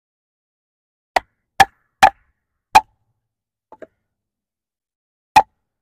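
A wooden baton striking the spine of a D2 steel tanto fixed-blade knife, driving the blade through a piece of wood to split it: four sharp knocks in the first three seconds, a faint double tap, then one more knock near the end.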